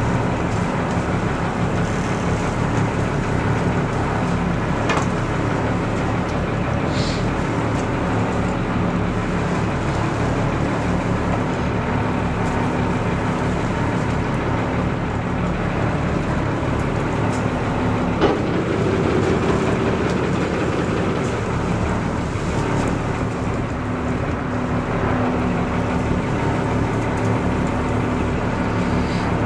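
Sport-fishing boat's engine running steadily, a low drone with wind and water rush over it. One short knock about two-thirds of the way through.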